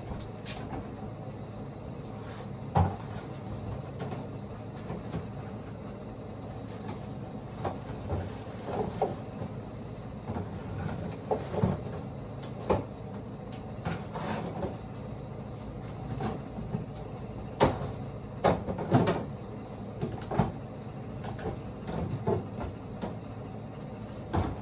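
Groceries being loaded into a refrigerator: scattered knocks and clunks of items set onto shelves and the fridge door being handled, over a steady hum. The sharpest knocks come about three seconds in and in a cluster near the end.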